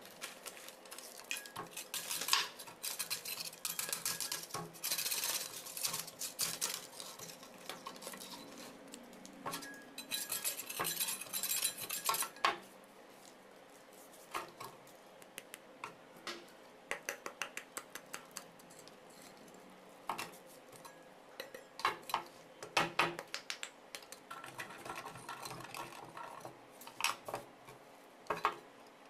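Concrete weight discs and a thin sheet-metal mould ring being handled on a work table: scattered clinks and knocks with rasping scrapes as loose cement is rubbed off, in busy spells with a quieter stretch in the middle.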